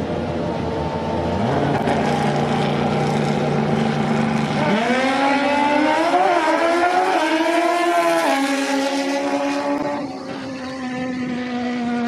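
Two drag-racing motorcycles holding their engines at steady revs on the starting line, then launching about five seconds in: the engine pitch climbs sharply and steps up and down through quick gear changes for a few seconds as they accelerate away.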